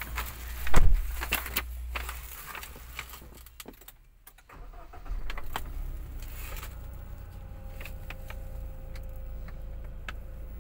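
JAC T8 pickup's engine cranked by push-button start about four and a half seconds in, then idling steadily, heard from inside the cab. Before that, handling clicks and a single loud thump about a second in.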